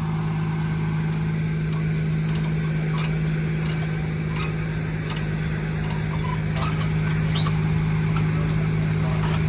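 Engine idling steadily: a constant low hum with a few faint clicks and taps over it.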